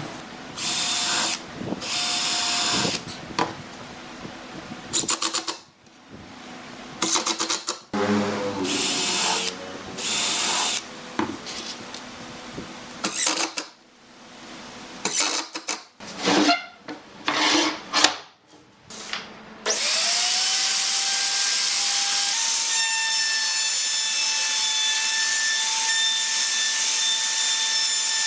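Cordless drill driving screws into a pine frame in several short bursts, with knocks and clatter between them. About twenty seconds in, a router mounted under a small shop-built table spins up with a rising whine and then runs steadily.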